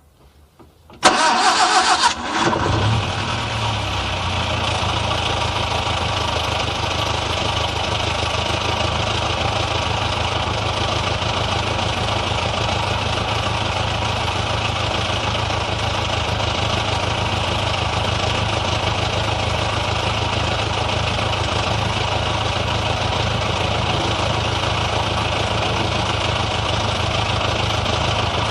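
Old car engine started: the starter cranks for about a second and a half, the engine catches, and it settles into a steady idle.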